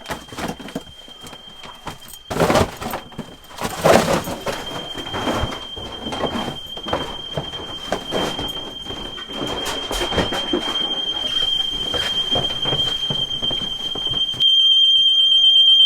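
House security alarm sounding one steady high-pitched tone, which becomes much louder near the end, over irregular knocks, bumps and rustling of people moving through the house.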